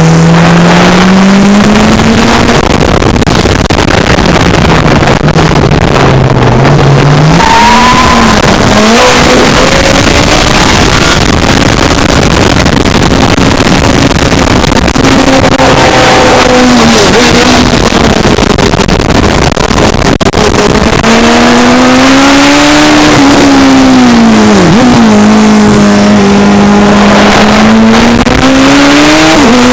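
Racing sidecar outfit's engine at speed, heard onboard, its pitch rising and falling repeatedly with throttle and gear changes, over heavy wind and road noise.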